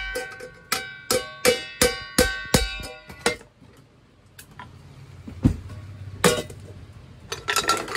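Hammer blows on a stainless-steel saucepan held on a metal stake, about three a second, each blow leaving the pan ringing. The hammering stops about three seconds in, followed by a few single knocks of metal on metal and a quick run of knocks near the end.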